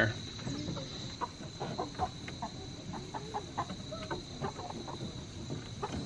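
Hens in a coop clucking softly, a scatter of short calls throughout.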